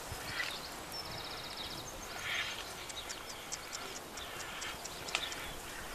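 Quiet outdoor rural ambience: scattered faint high chirps, a short rapid trill about a second in, soft rustling, and a few light clicks near the end.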